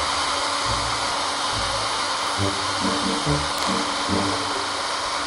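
Plunge router running steadily as its bit cuts a recess into cured epoxy resin, a dense high-speed motor and cutting noise, with background music and a bass line underneath.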